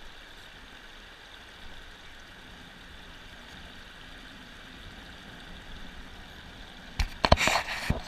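Steady rush of shallow river water running over stones. About seven seconds in, a second of loud knocks and rubbing as a hand handles the head-mounted camera.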